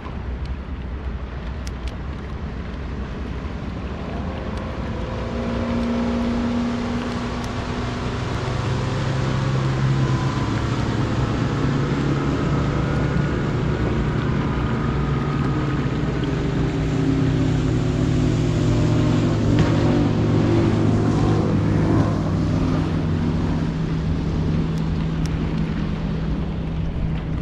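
Center console motorboat's engine running under throttle, its drone growing louder through the first third and then holding steady, with some gliding pitch in the middle. Wind and water noise underneath.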